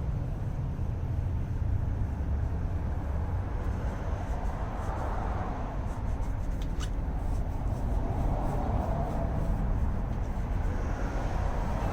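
A steady low rumble, with a few soft swells of hiss and one sharp click about seven seconds in.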